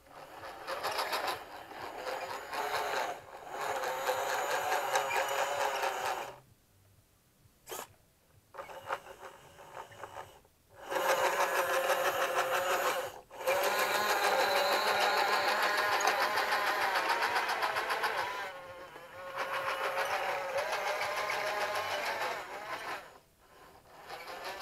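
Electric drive motors and gearing of an RC Dickie Snow King snow-groomer model whining as it drives on its tracks. The motors stop and start several times, and the pitch rises and falls as the speed changes.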